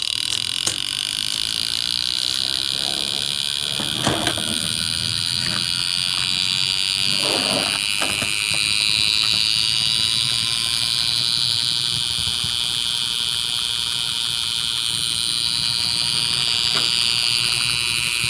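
Clockwork spring motor of a wind-up spinning bear clown toy running after being wound, a steady high buzzing whir.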